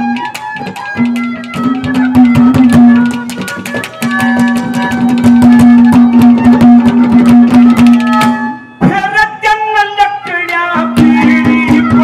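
Instrumental Haryanvi ragni accompaniment: hand drums beat a fast, dense rhythm over a steady held note. About nine seconds in, the drumming drops back and a wavering melody line comes forward, and the held note returns near the end.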